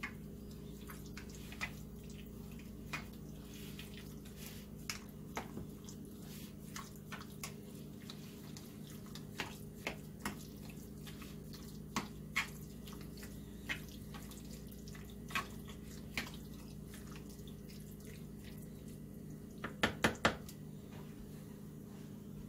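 Scattered light clicks and taps of a utensil against a ceramic bowl as spiced dried-apple pie filling is stirred, with a quick run of three sharper clinks near the end. A steady low electrical hum runs underneath.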